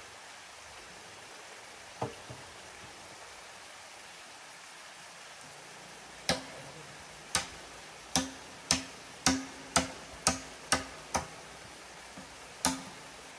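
Blows of a hammer on wood: a single knock about two seconds in, then a run of about ten sharp strikes, slow at first and then about two a second, each with a brief ring.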